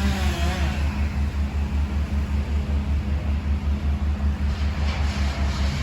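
A large engine running steadily, with a low, even throb about five or six times a second.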